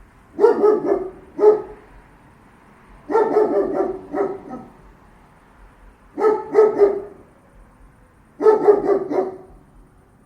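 Large German shepherd guard dog barking deeply in short volleys of two to four barks, a pause of a second or two between each volley.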